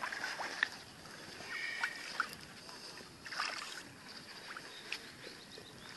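Tench splashing and flapping in shallow water as they are released, with water sloshing around a keepnet being emptied: a few short splashes near the start and a longer wash of splashing about three and a half seconds in.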